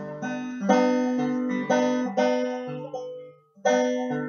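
Instrumental intro picked on a plucked string instrument: a slow run of single notes and chords, each struck sharply and left to ring, with a brief pause a little past the three-second mark.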